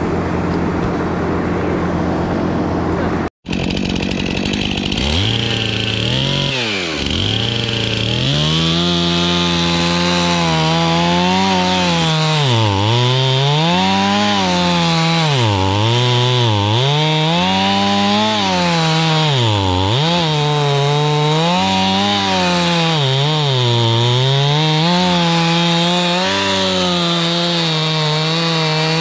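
Chainsaw cutting wood, its engine pitch dropping as the chain bites and climbing back roughly every two seconds. It is preceded by a steady engine drone that cuts off abruptly about three seconds in.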